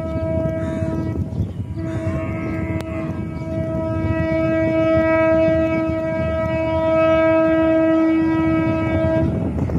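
A Bangladesh Railway diesel locomotive's horn blowing one steady note over the rumble of the moving train: it breaks off briefly about a second in, then sounds again in a long blast that stops near the end.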